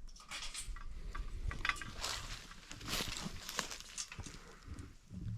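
Irregular rustling, scuffing and light knocks of people moving about and handling their gear, with no steady sound underneath.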